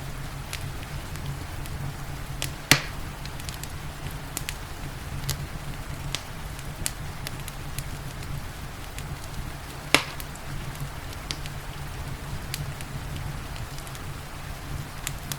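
Wood fire crackling, with frequent small snaps and two louder pops, over a steady hiss of rain and a low, even rumble.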